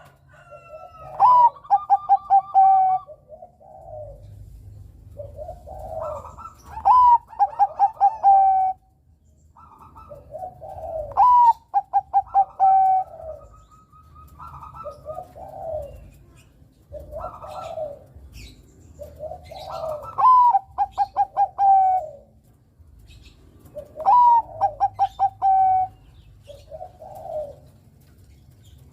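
Bangkok-type perkutut (zebra dove) cooing: a phrase every four or five seconds, each opening with a rising note and running into a quick string of short staccato coos.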